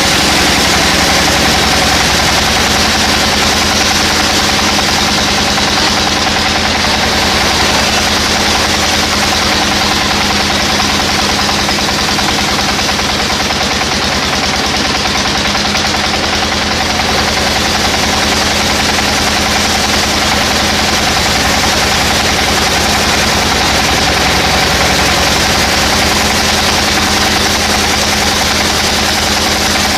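Sawmill machinery running steadily: an engine-like drone with a fast, even pulsing and a constant hum.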